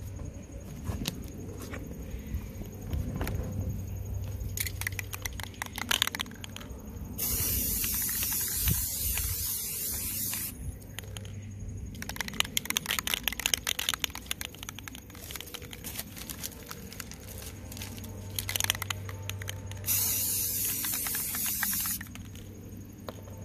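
Aerosol spray-paint can hissing in two bursts, one of about three seconds a third of the way in and a shorter one near the end. Between the bursts there is fast clattering and rattling, the sound of the can being shaken.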